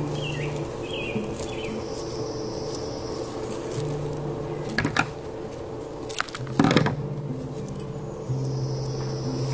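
Soft background music with long held low notes, broken by two sharp clicks about five and seven seconds in.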